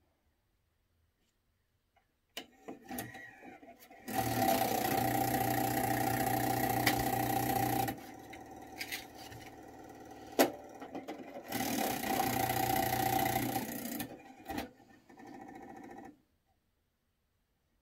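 Sony MDS-JE510 MiniDisc deck's disc loading mechanism working. A few clicks, then the loading motor runs steadily for about four seconds as the disc is ejected. After lighter clicks and a sharp knock, the motor runs again for a couple of seconds as the disc is drawn back in, followed by a quieter whir that stops as the deck reads the disc's table of contents.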